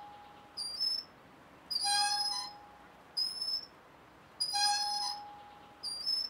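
Rhythmic squeaking from the horse ride as it rocks back and forth. A short high squeak alternates with a longer, lower squeak, roughly every second and a half.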